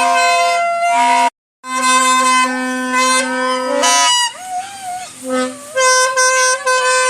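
Torotot toy trumpets blown in long, steady, buzzy blasts. The sound cuts out briefly about a second in, and there are some softer, wavering notes midway.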